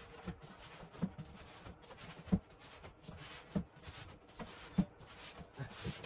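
A large cardboard box being handled and opened by hand: a handful of soft, dull bumps at uneven intervals, with faint rustling of cardboard.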